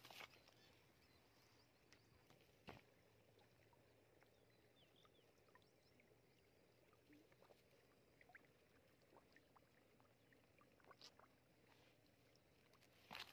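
Near silence: faint outdoor background hiss with a few soft, isolated clicks.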